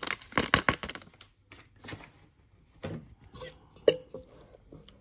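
A fork clinking and scraping against a metal cooking pot while cheese powder is stirred into cooked pasta: a quick run of clicks in the first second, then a few scattered taps, one with a brief ring near four seconds.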